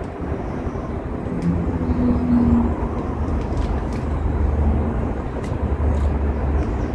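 Wind buffeting the microphone: a steady low rumble that grows stronger in the second half. Faint, sharp clicks come through it from crunching flatbread crisps and handling the plastic snack bag.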